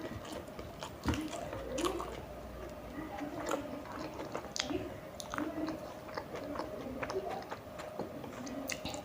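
Close-miked chewing and biting of tandoori momos: wet mouth sounds with many small irregular clicks, over a faint steady hum.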